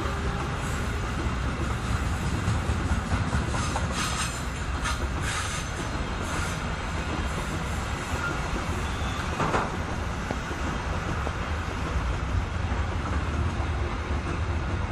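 Container freight wagons rolling past close by: a steady heavy rumble of steel wheels on the rails, with a few brief high wheel squeals around the middle.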